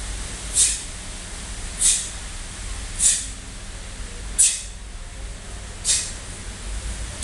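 Five short, sharp hisses spaced about every one and a quarter to one and a half seconds: a taekwondo student's forceful exhalations through the teeth, one with each technique of an ITF pattern.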